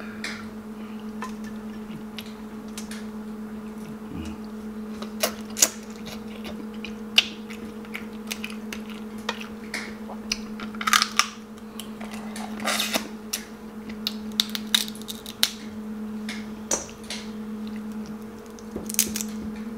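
Close-up eating sounds: Dungeness crab shell being cracked and picked apart by hand, with chewing and many short sharp clicks scattered through, denser in a few clusters. A steady low hum runs underneath.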